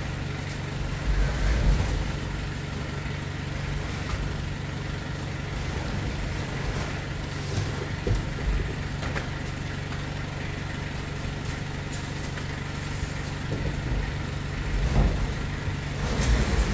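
A small box truck's engine idling steadily, with a few dull thumps and knocks as crates and boxes are loaded onto its cargo bed.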